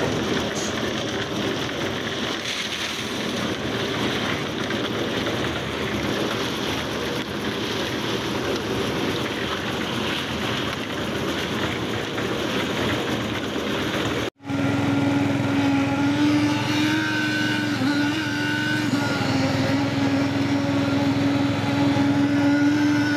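Drum concrete mixer running and churning concrete, its engine and the turning drum making a dense, steady noise. About two-thirds of the way through it cuts off abruptly, and a steadier engine hum with a clear, slightly wavering pitch takes over.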